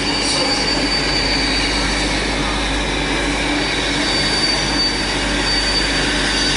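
Ex-LMS Jubilee Class three-cylinder 4-6-0 steam locomotive 45596 Bahamas approaching slowly with its train, a steady rumble and hiss with no distinct exhaust beats.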